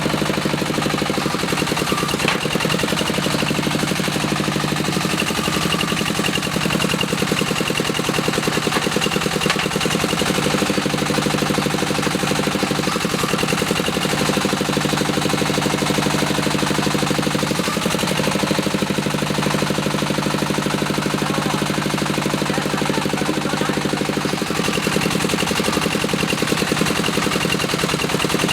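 The small drilling rig's 22HP diesel engine runs steadily with a fast, even chugging, driving the rig's hydraulic motor and mud pump; its note shifts slightly a few times as the load changes.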